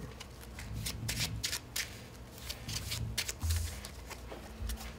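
A deck of plastic-sleeved Magic: The Gathering cards being shuffled by hand, quick crisp flicks coming in several short runs, with a soft thud about three and a half seconds in.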